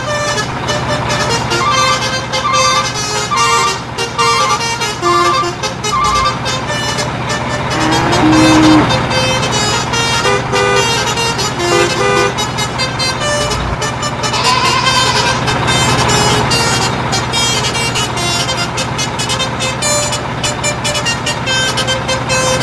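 Steady truck engine sound running under cheerful background music, with a couple of short horn toots about eight and fifteen seconds in.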